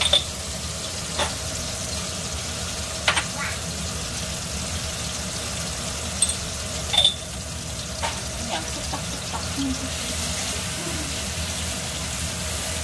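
Tomato wedges and green onion sizzling steadily in oil in a frying pan, with a few short sharp clinks of a spoon and utensils as they are seasoned, and a spatula stirring the pan near the end.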